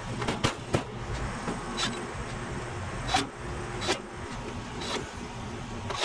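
Sheet-metal top panel of a heat pump's outdoor unit knocking as it is seated, then a cordless drill-driver running in short bursts as it drives the panel screws.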